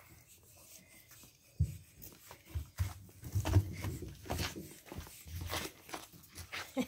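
Pug puppies scuffling and play-wrestling on a wooden deck, with irregular soft knocks and rustles that start about a second and a half in, mixed with rubbing from the camera being handled.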